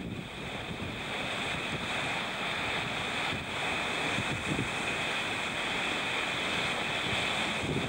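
Ocean surf surging and washing over coastal rocks, a steady rushing wash, with wind on the microphone.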